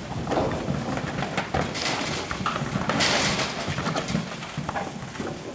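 Highland cattle hooves clattering and knocking irregularly on a livestock trailer's ramp as the cows come down it, with a louder rushing, scraping noise about three seconds in.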